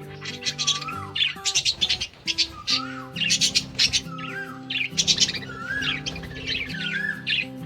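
Budgerigars chattering, with rapid high chirps and squawks in quick bunches, over background music with held chords.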